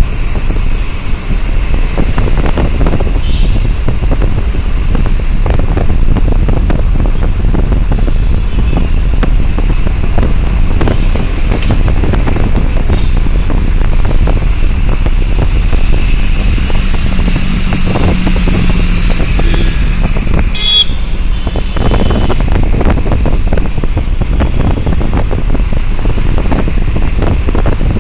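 Steady road-traffic and vehicle noise from a moving vehicle, dominated by a loud low rumble. A short higher tone sounds about 21 seconds in.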